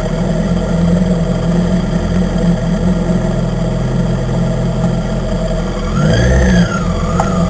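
Motorcycle engines idling steadily, then revving with a rising pitch about six seconds in as the bikes pull away.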